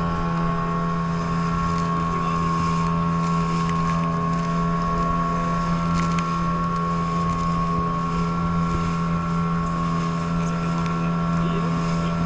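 Motorboat engine running at a steady speed, a constant drone that holds the same pitch throughout.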